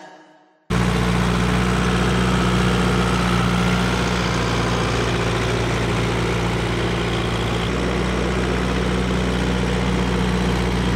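Fendt Farmer tractor's diesel engine running steadily under load as it pulls a tillage implement, cutting in abruptly once the music fades out, less than a second in.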